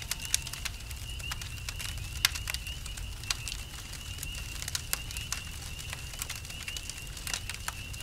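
Campfire crackling, with irregular sharp pops of burning wood, over a steady high pulsing chirp of crickets and a low rumble.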